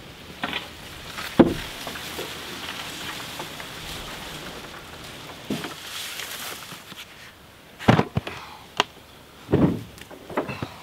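A wooden canoe noses into reeds at the bank, with rustling and scraping and one sharp knock about a second and a half in. Near the end comes a quick run of knocks and thumps as a plastic barrel is hauled out of the canoe onto the bank.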